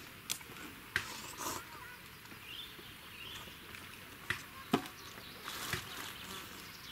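Quiet outdoor ambience with a few faint bird chirps and several sharp clicks and knocks, the loudest about two-thirds of the way through.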